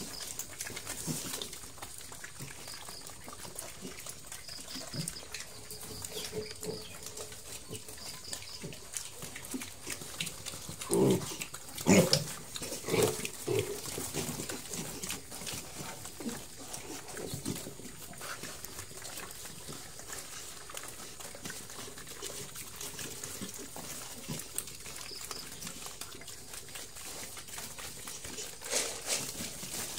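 Piglets eating dry crumbled feed from a concrete trough: continual small crunching and smacking of chewing, with a few loud pig grunts clustered about eleven to thirteen seconds in and one more near the end.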